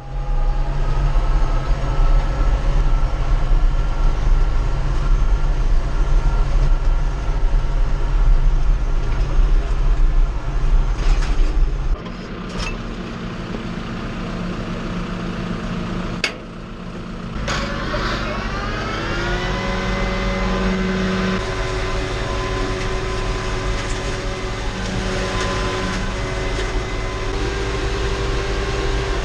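Tractor engine running steadily under load. About twelve seconds in the sound changes abruptly, and a little later a sharp click is followed by the engine rising in pitch as it speeds up, then running steadily again.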